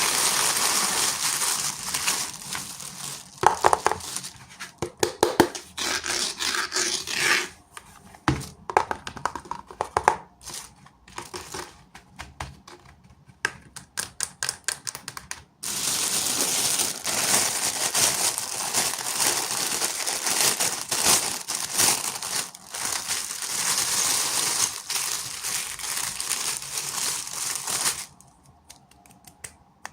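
Plastic packaging being crinkled and torn open by hand. A middle stretch of scattered clicks and rustles sits between two longer runs of steady crinkling, which stops abruptly near the end.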